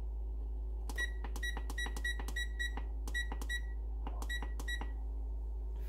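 Whirlpool electric range's control panel beeping, one short high beep for each key press, about a dozen in quick succession with a short pause before the last three, as the oven's bake temperature is stepped up to 400 degrees.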